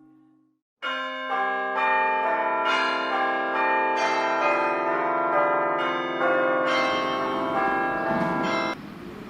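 Church bells ringing a quick run of notes, about two strikes a second, each note ringing on under the next. They cut off abruptly near the end, giving way to a steady low noise.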